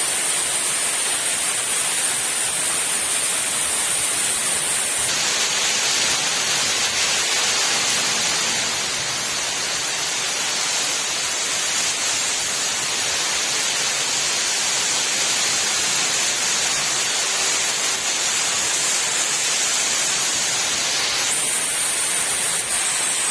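Heavy rain pouring steadily on coconut palms: a dense, even hiss.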